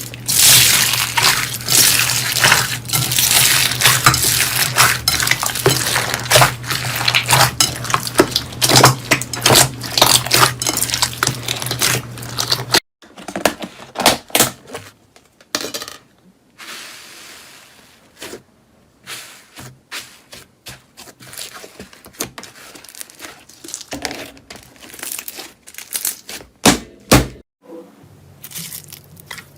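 Slime being squeezed and pressed by hand, making dense crackling and popping clicks over a low hum. About halfway through it cuts to sparser, quieter pops and squishes.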